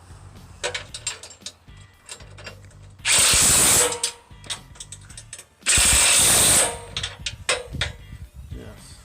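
Track bolts being tightened on sawmill rails: light ratchet-like clicks, then two loud bursts of a power driver, each about a second long, pulling a misaligned track joint together.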